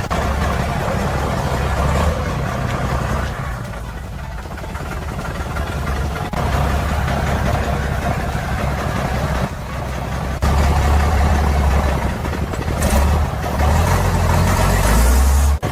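Heavy truck diesel engine running under load, its low rumble jumping abruptly in level several times.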